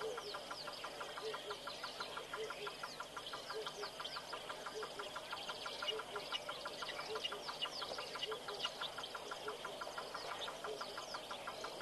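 Wild bird chorus: many birds giving quick falling chirps, over a fast, steady pulsing chorus and a low note repeated a little under twice a second.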